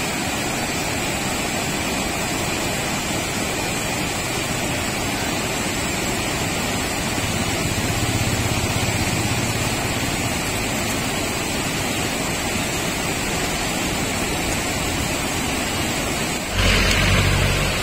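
Rushing white-water river rapids, a steady loud rush of water. About a second before the end the sound changes abruptly and gets louder, with a low rumble.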